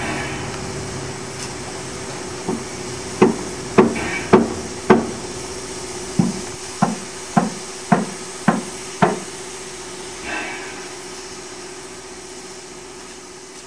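A hammer strikes metal eleven times at a steam locomotive's crank pin and coupling rod, each blow ringing briefly. The first five come unevenly and the last six come about every half second. Steam hisses steadily underneath.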